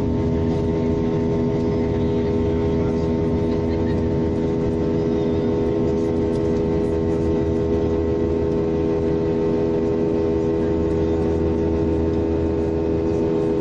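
Airliner cabin noise in flight: the steady drone of the engines and rushing air, with several held tones over an even low rumble.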